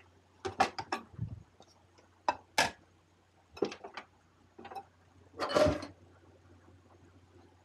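Dishes and cutlery being handled during washing-up: scattered clinks and knocks, with a longer, louder clatter about five and a half seconds in, over a faint low steady hum.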